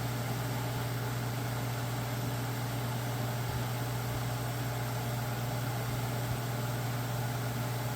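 1990s Capehart 40-pint dehumidifier running steadily: a constant mains-type hum with the rush of its fan. The fan motor, seized a year earlier, runs freely again now that its front bearing has broken free.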